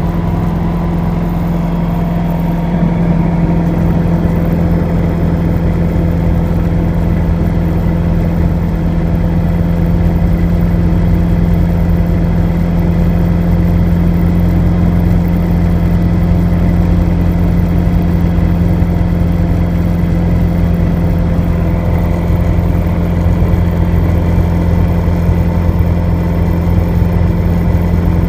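Rotax 914 turbocharged flat-four aircraft engine and propeller running steadily at about 2,500 rpm during a ground run, heard from the cockpit.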